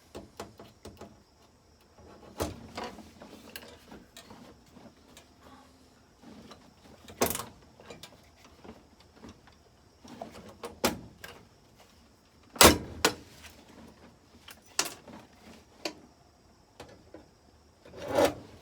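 Hand pop-rivet tool setting rivets: a series of sharp clicks and snaps every one to four seconds, with quieter handling noise between.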